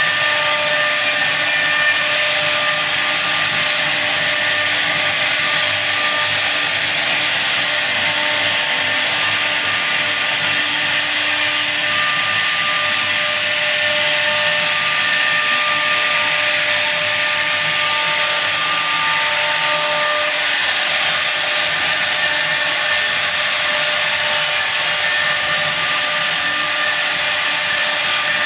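CNC router spindle running steadily, a constant whine over the noise of the bit cutting a design into wood.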